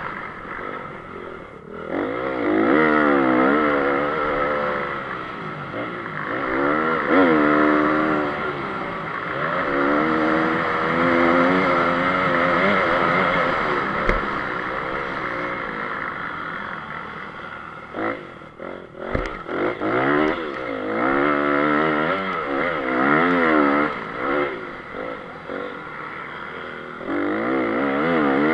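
Honda CRF 250 four-stroke single-cylinder motocross engine heard from on board, revving up and down over and over as it is ridden hard through gears and corners. A few sharp knocks come about two-thirds of the way in, while the engine briefly drops off.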